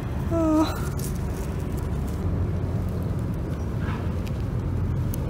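Steady low rumble of road traffic in the background. About half a second in comes one short, slightly rising hum-like tone, with a few faint rustles of gloves handling a pigeon's feathers afterwards.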